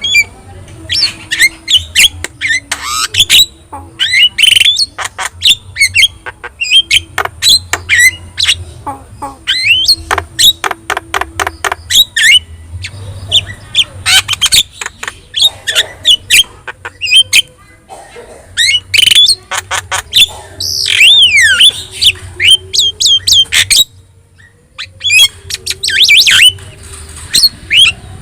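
Javan myna (jalak kebo) in full song, a long varied run of harsh squawks, sharp clicks and whistled up-and-down notes. About a third of the way in there is a quick rattle of clicks.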